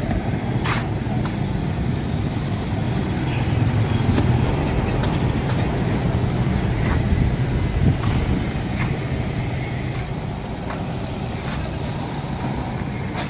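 Steady road traffic noise with a low engine hum, and a few faint clicks scattered through it.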